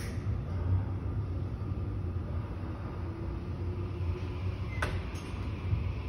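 Low steady rumble of a Korail Class 381000 electric train, set 381001, as it starts to pull out along the platform, with a faint whine from about three seconds in and a single sharp click about five seconds in.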